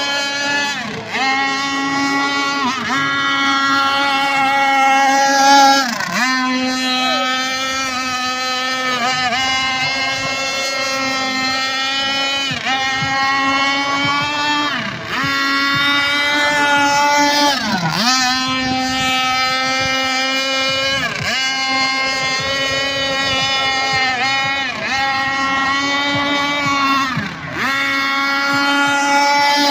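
Gasoline RC speedboat's two-stroke Zenoah engine running at high revs, the revs dipping briefly and climbing back every few seconds.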